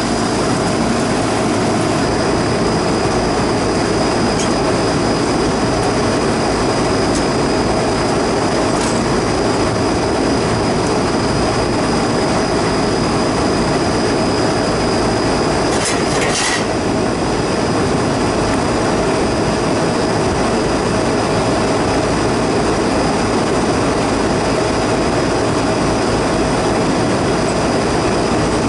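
Rooftop air-conditioning equipment running: a steady, loud mechanical rush with a thin steady whine over it. A brief clatter sounds about sixteen seconds in.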